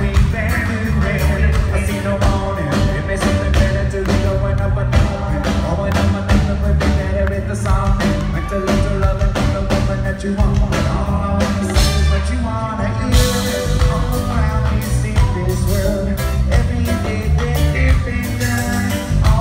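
Live reggae-rock band playing loud, with heavy bass, a steady drum beat and singing. A burst of cymbal or crowd hiss comes about two-thirds of the way through.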